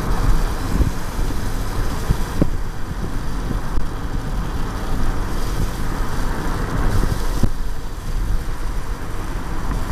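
Steady road noise from inside a moving car: a low rumble with tyre hiss on wet pavement.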